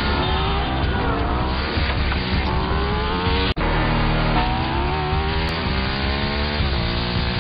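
Motorcycle engine accelerating hard, its pitch rising and dropping back again and again as it shifts up through the gears. The sound cuts out for an instant about three and a half seconds in.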